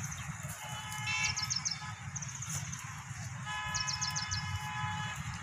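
A vehicle horn sounding twice in long, steady blasts, each about a second and a half, over a low steady rumble, with quick high chirping trills of a bird between and alongside the blasts.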